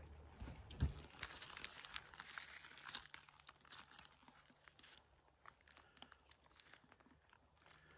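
Faint crinkling and crackling of a plastic pouch being squeezed and kneaded, busiest in the first few seconds and then thinning out. This fits a two-part expanding post foam being mixed in its bag.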